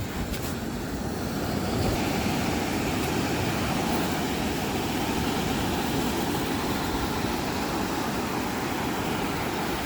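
Steady, even rushing noise of wind and sea surf at the shoreline, with no distinct events.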